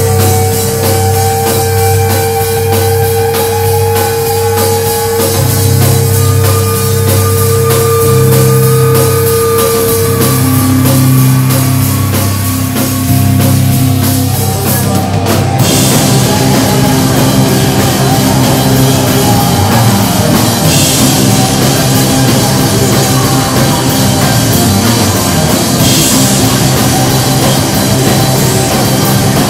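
Loud live rock band with electric guitar, bass guitar and drum kit. Long held notes ring over the drums at first, then about halfway through the playing turns denser and busier.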